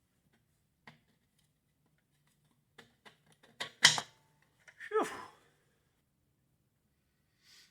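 Scattered clicks and clanks of metal tools and hardware being handled, with the loudest clank just before four seconds in and a short scrape falling in pitch about a second later.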